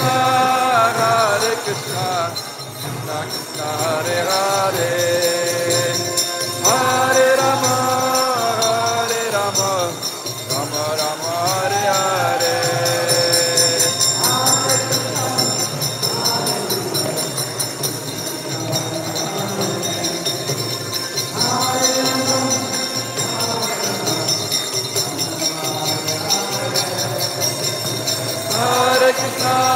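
Devotional group chanting (kirtan) in sung phrases, over a steady ringing of karatalas (small hand cymbals) and a rhythmic drum beat.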